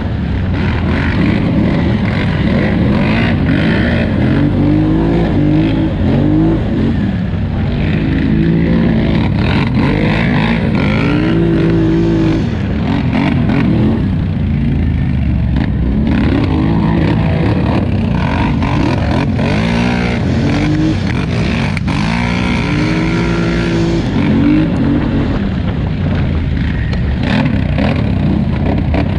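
2018 Polaris Scrambler 1000XP ATV engine revving up and falling off again and again as the throttle is worked on and off, over a constant low rumble, with scattered sharp knocks.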